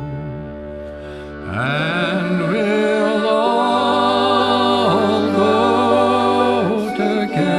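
Background music: a steady drone, joined about a second and a half in by a held, wavering melody line.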